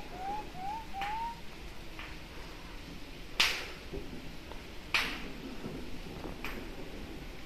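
A puppy whimpering: a quick run of short, high, rising whines in the first second and a half. Two sharp snaps follow, about three and a half and five seconds in.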